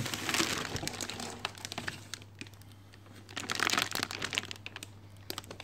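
Plastic air-column packaging crinkling and rustling with small crackles as the projector is lifted out of it, loudest at the start and again about three and a half seconds in.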